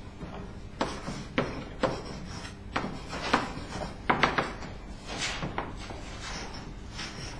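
Chalk writing on a blackboard: a string of short taps and scratchy strokes as symbols are written.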